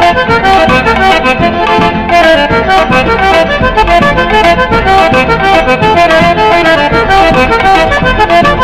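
Instrumental forró recording led by a button accordion playing a quick melody over a steady, driving beat.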